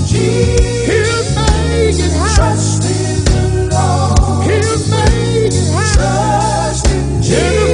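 Gospel song: a singing voice with wavering, ornamented notes over a band with a sustained bass line and a steady drum beat.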